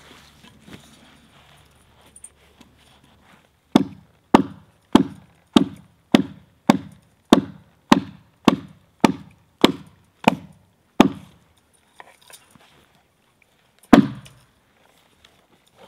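Hatchet chopping into the bark of a felled Douglas fir log, marking the spot for the next bucking cut. There are about thirteen quick strikes at a steady pace of nearly two a second, then a pause and one harder blow.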